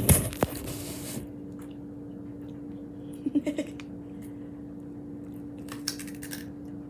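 A person biting and chewing homemade chocolate: short crunchy clicks about three seconds in and again near six seconds. Rustling handling noise close to the microphone in the first second, and a steady low hum throughout.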